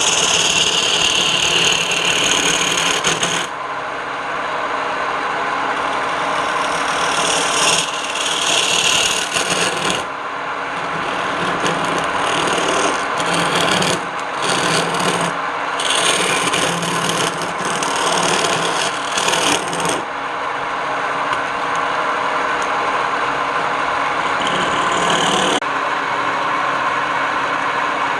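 Wood lathe running with a steady motor hum while a tool works the spinning wooden piece. The rough, scraping rasp swells and eases in stretches of a few seconds.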